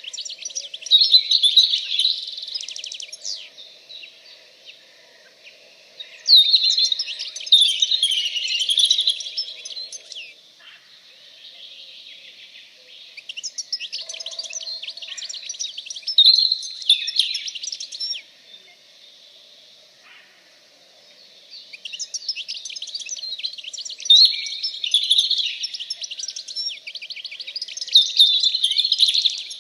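Birdsong: long phrases of rapid, varied high-pitched twittering and chirping, in four bouts with short pauses between them.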